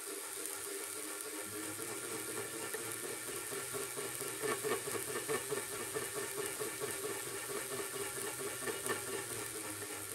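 Antique Wimshurst machine cranked by hand, its belt-driven glass discs spinning with a steady whir, overlaid by a sizzling hiss and fine crackle of static discharge, busiest in the middle, as the charged electric whirl spins.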